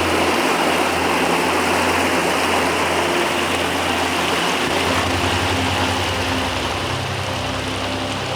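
Steady rushing roar of a waterfall, with faint background music underneath.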